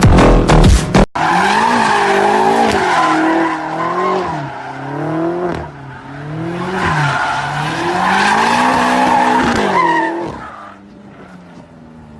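BMW M car's engine revving up and down with tyres squealing, as in a drift; the sound dies down near the end.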